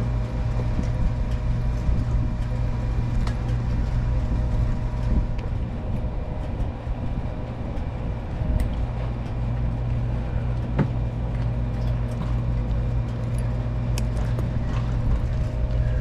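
Motorcycle engine running at a steady pace under way, a constant low rumble with no breaks or revving.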